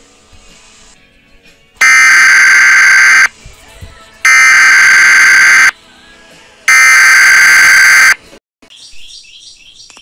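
Emergency Alert System header tones: three loud, harsh, buzzing blasts of about a second and a half each, a second apart.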